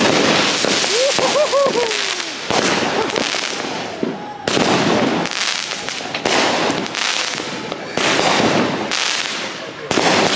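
Consumer fireworks going off in dense crackling volleys, a fresh loud burst starting about every two seconds.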